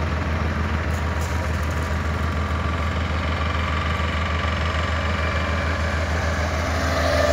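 Heavy diesel engine idling steadily, a low, even, pulsing hum with no revving.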